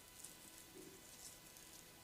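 Faint soft rustling of hands rubbing and pressing on the scalp and hair during a head massage, a few light swishes with one dull low brush a little under a second in.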